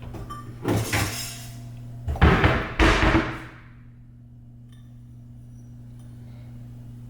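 Kitchen cabinet doors banging shut, a clatter about a second in and a louder, longer one around two seconds in, over a steady low hum.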